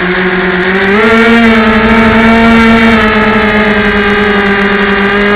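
Electric motor and propeller of a small RC trainer airplane running in flight, heard close up from a camera taped to the airframe: a loud, steady buzzing whine that sits lower at first, rises about a second in, then holds.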